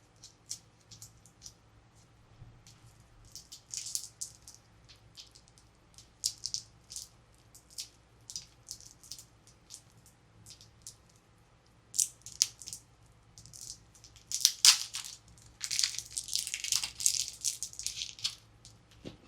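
Plastic toy packaging being handled and opened by hand: a run of short crinkles and clicks, busier and louder in the last few seconds.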